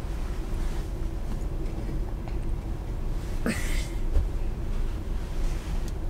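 Steady low rumble with a faint steady hum, and one short rustle about three and a half seconds in from a child shifting on a quilted blanket.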